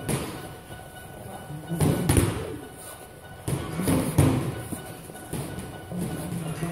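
Boxing gloves thudding as punches land on a partner's gloved guard during a kickboxing combination drill, in two quick clusters of hits about 2 and 4 seconds in, over background music.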